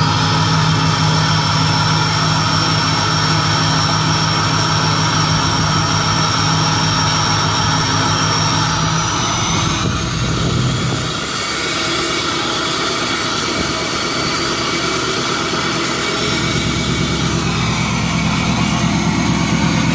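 Chevrolet Duramax V8 turbo-diesel idling through a 5-inch Magnaflow exhaust with an 8-inch tip: a loud, deep, steady idle. A thin high turbo whistle sits above it and climbs a little about nine seconds in.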